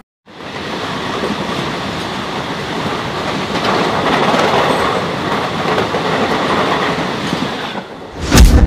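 Underground metro train running through a tunnel: a steady rumble of wheels on rail that swells in over the first second. Near the end it gives way to a quick whoosh with a deep bass hit.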